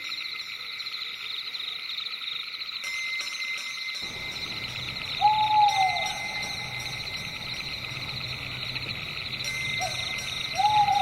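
Owl hooting twice, each a drawn-out call that falls slightly in pitch: one about halfway through and one near the end, with a short note just before it. Behind it is a steady, fast-pulsing high trill of night insects.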